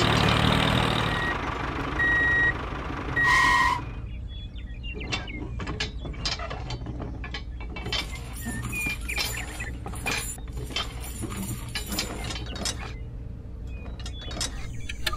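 Light metallic clinks and rattles of a small chain and bolt being handled and fitted to a toy tractor's hitch rings, coming in irregular clusters. Before that, a louder steady whirring noise with three short high beeps, which stops about four seconds in.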